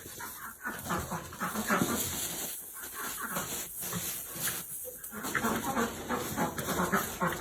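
Miniature Juliana pig making short, irregular grunts and snuffles, busier from about five seconds in.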